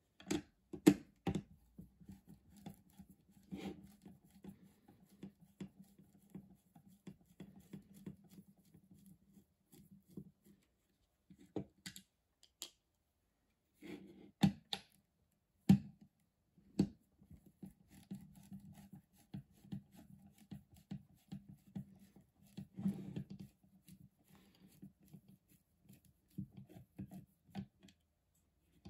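Screwdriver turning screws out of a Stanley hot glue gun's plastic housing: faint scraping and rubbing of the tool and gloved hand on the plastic, with sharp clicks and knocks now and then. It stops briefly about halfway through.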